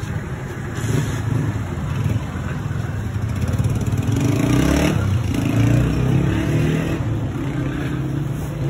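A road vehicle's engine running in the street, building to its loudest through the middle with a slight rise in pitch, as if accelerating past, then easing off toward the end.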